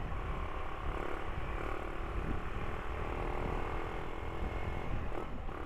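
Strong wind rushing over the microphone on a moving motorcycle, a steady low rumble with the motorcycle's engine and road noise underneath.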